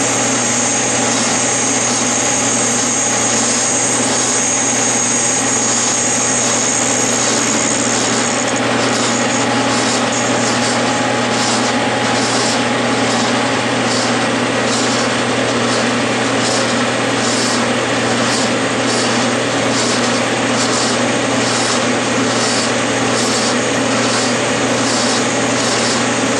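Clausing metal lathe running with a steady motor hum while a hand-fed tool bit takes a light cut on a spinning mild steel cone point. About a third of the way in a high whine stops and a regular light ticking, about one and a half a second, starts.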